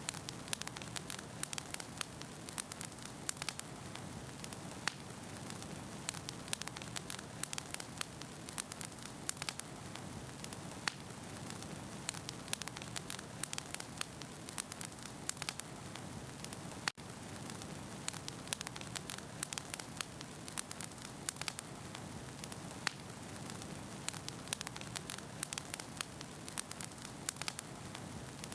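Wood fire crackling: dense, irregular pops and snaps over a steady hiss, with a momentary cut-out about two-thirds of the way through.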